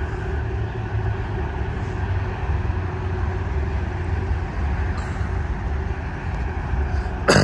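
Amtrak P42 Genesis diesel locomotive at the head of a passenger train, its engine running as a steady low drone with a held hum. A brief thump near the end.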